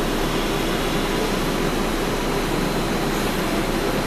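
Steady hum and hiss of a MARTA rapid-transit railcar standing at the platform with its doors open, its air-conditioning and ventilation running.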